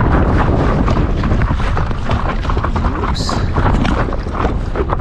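Wind buffeting the microphone: a loud, steady rumble with constant gusty crackle, in the open over a lake.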